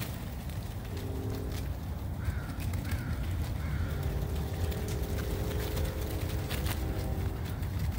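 Crows cawing: three short calls from about two seconds in to about three and a half seconds in, over a steady low rumble and a faint steady hum.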